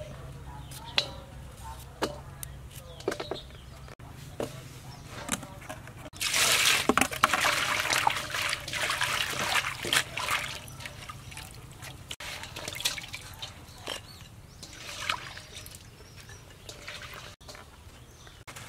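A few sharp knife clicks cutting papaya-leaf stalks over a steel bowl. Then, from about six seconds in, hands swish and splash leafy greens in water in a stainless steel bowl, loudest for some four seconds and fading to smaller splashes.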